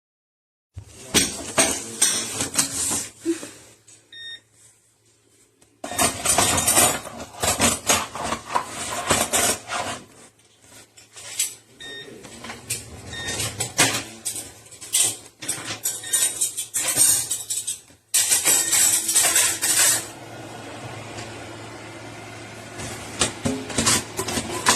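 Plastic food-dehydrator trays and lid clattering as they are handled and stacked, with a few short electronic beeps from the control panel and a steady low hum underneath.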